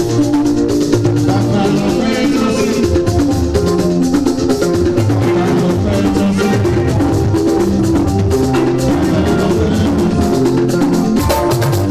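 Upbeat gospel music with a drum kit and shaker-like percussion keeping a steady beat under sustained keyboard or horn chords, with no singing.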